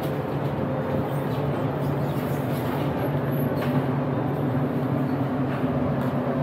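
Street traffic with a vehicle engine running steadily close by, a continuous low hum under general road noise.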